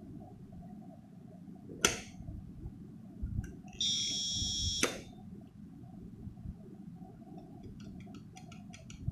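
An Arduino fingerprint door lock cycling: the solenoid lock clicks open, about two seconds later a buzzer gives one steady high beep lasting about a second, and a second sharp click as the solenoid lock closes again cuts it off. This is the lock's response to an accepted fingerprint.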